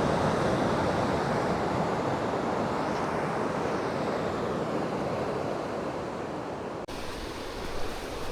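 Ocean surf washing onto the beach and rocks, a steady rushing noise with some wind on the microphone, easing slowly and broken by a brief dropout about seven seconds in.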